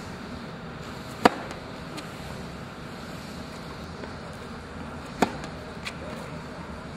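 Tennis ball struck by a racquet: two sharp, loud hits about four seconds apart, with a few fainter ticks between them, over a steady hum of wind on the microphone.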